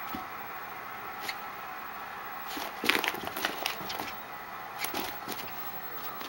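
A chihuahua scuffling during rough play: a flurry of short scratchy clicks and rustles starts about two and a half seconds in, and a few more come near five seconds, over a steady hiss.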